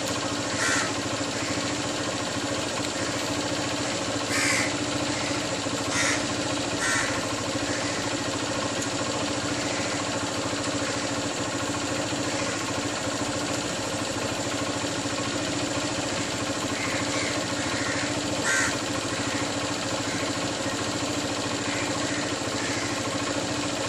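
Crows cawing now and then, short separate caws scattered through, over a steady background hum.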